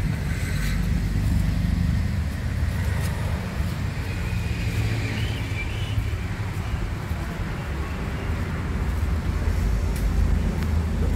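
Steady low outdoor rumble, with faint short chirps about five seconds in.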